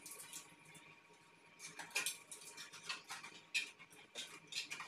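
Irregular small clicks and scrapes of hands working a ceiling lamp holder loose from its mounting, with clusters about two seconds in and near the end.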